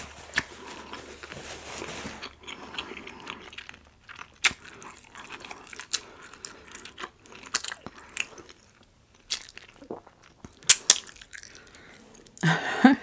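Close-miked chewing and biting: wet mouth clicks and small crunches, scattered and irregular, as a meal is eaten. A voice begins near the end.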